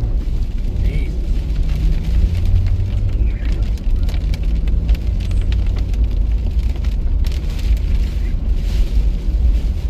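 Steady low rumble of a car driving, heard from inside the cabin, with rain striking the car.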